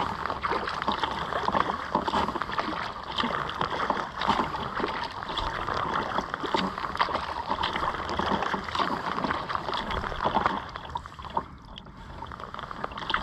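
Water splashing and lapping around a kayak as it is paddled, dying down somewhat near the end.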